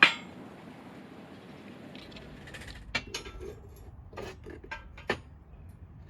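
A single sharp, loud knock, then after about three seconds a scatter of lighter clinks and knocks, five or so, over a faint steady background.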